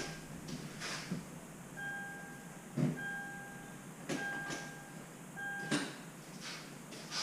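An electronic beep tone sounding four times, about a second each with short gaps between, among a few faint clicks.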